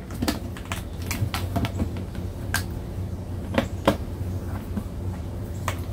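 Hard plastic clicking and tapping as the snap-lock lid of a plastic food storage container is handled and pressed to lock down: scattered sharp clicks over a steady low hum.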